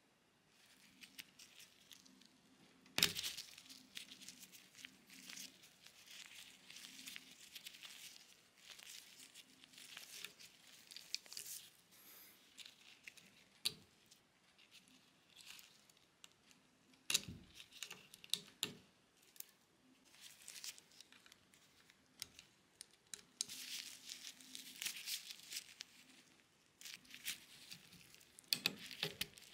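Faint rustling and crinkling of nitrile-gloved hands working among the 3D printer's wiring, with scattered sharp clicks as small JST plug connectors are pulled from the extruder's breakout board. The loudest clicks come about three seconds in and again near seventeen seconds.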